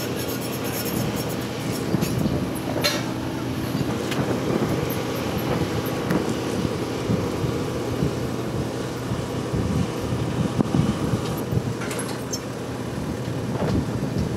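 Steady low drone of running engines or machinery on an airport apron, with a few short knocks and clatters from cargo carts and boxes being handled.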